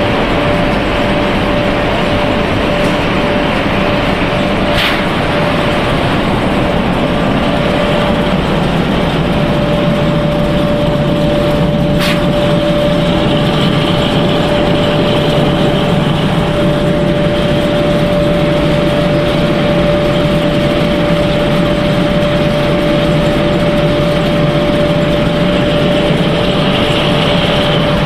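Machinery of a fried snack-pellet production line running: a loud, even mechanical noise of motors and fans with a steady humming tone. Two sharp clicks stand out, about five and twelve seconds in.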